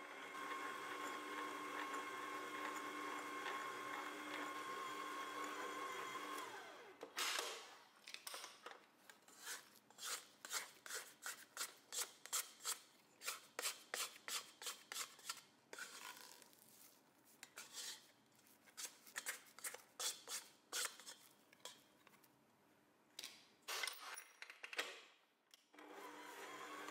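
An electric kitchen mixer's motor runs with a steady hum while mixing bread dough, then stops about seven seconds in. A long run of short, sharp knocks and scrapes follows, about two a second, as the dough is worked. The motor hum starts again near the end.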